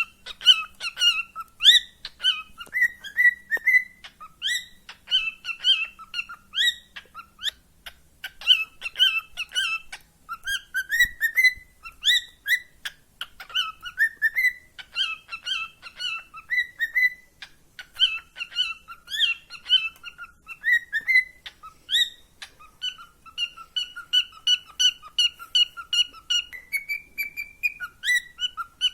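Pet cockatiel whistling and chirping without pause in quick rising whistled notes. Near the end it repeats one note evenly, about three times a second.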